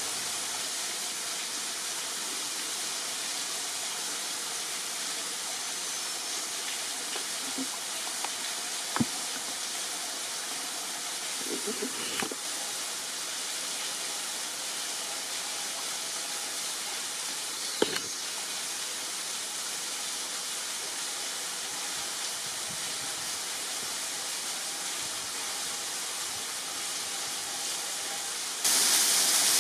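Steady rush of falling and running water from a waterfall and rocky creek, with a few faint knocks in the middle. It turns suddenly louder just before the end.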